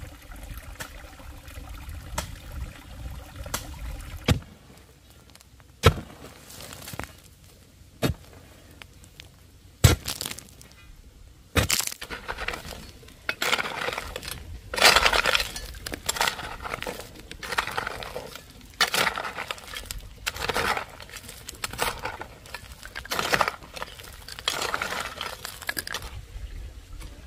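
Hard objects clinking and knocking, glass or crockery. There are a few sharp, separate knocks at first, then from about halfway a denser run of short clattering and scraping sounds.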